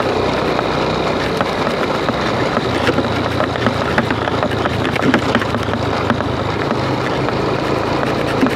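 A car driving along, heard from inside the cabin: a steady rush of road and wind noise over a low engine hum, with scattered small rattles.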